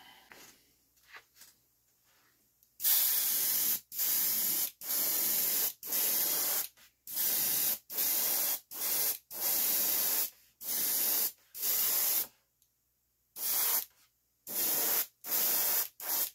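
Airbrush spraying paint in a run of short bursts of hiss, each under a second with brief gaps, starting about three seconds in and pausing for a couple of seconds near the end before a few more bursts.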